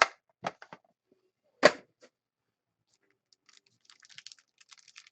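A few separate sharp clicks or knocks, then from about three and a half seconds in a quick run of light clicks like typing on a computer keyboard.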